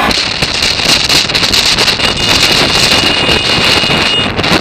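Wind rushing over a motorcycle rider's camera microphone at road speed, with a thin steady high whine underneath that stops shortly before the end.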